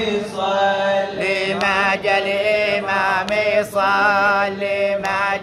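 Chanted Arabic lament (latmiya): a male voice singing long, wavering held notes with vibrato, over a steady low tone underneath.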